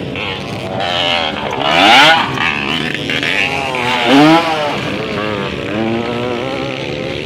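Dirt bike engines revving hard on a motocross track, their pitch climbing and falling as the riders work the throttle. It is loudest about two seconds in, and again around four seconds as one bike goes by close, its pitch rising then dropping.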